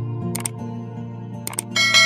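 Background music with the sound effects of a subscribe-button animation: two mouse clicks, about half a second and a second and a half in, then a bell-like notification chime near the end that keeps ringing.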